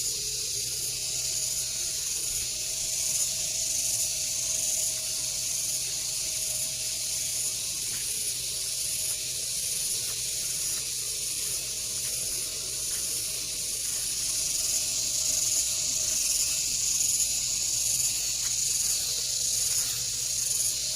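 Steady high-pitched hiss of rice-paddy ambience, with a faint fast flutter at the top of the sound.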